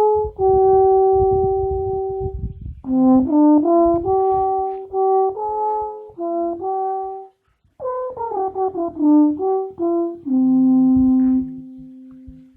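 Alphorn playing a slow melody: a long held note, a phrase of shorter notes, a brief pause, then a falling run that settles on a long low note, which fades away near the end.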